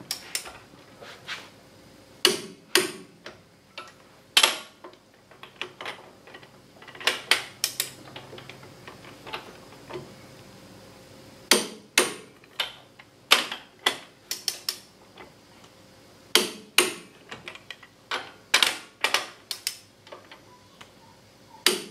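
Tekton half-inch-drive click-type torque wrench, set to 75 ft-lb, ratcheting and tightening steel U-bolt nuts on a leaf spring. It gives sharp metallic clicks, single and in quick runs with pauses between, including the wrench's click as it breaks over at its torque setting.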